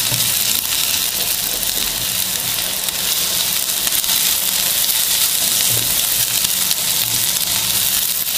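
Chopped onions sizzling steadily in oil in a non-stick frying pan as they are stirred with a silicone spatula, being sautéed until soft.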